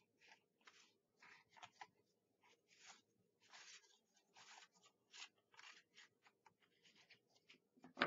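Faint paper rustling and scraping as small paper pieces are handled and pressed down by hand, in a series of short, irregular scratchy strokes.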